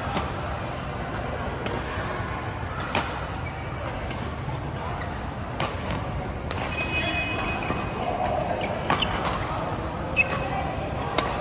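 Badminton rackets hitting a shuttlecock during a doubles rally: sharp, single smacks at irregular gaps of about one to two seconds, echoing in a large hall, over a background of voices.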